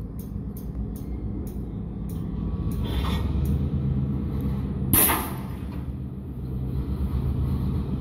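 Freight cars being pulled apart during switching, over the steady low rumble of a diesel locomotive working. A short hiss of air comes about three seconds in, then a loud, sudden blast of air about five seconds in as the air brake hoses between the separating cars part.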